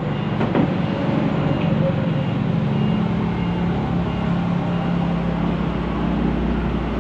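A large vehicle's engine running steadily, with a short high beep repeating at a regular pace, like a reversing alarm. A single knock sounds about half a second in.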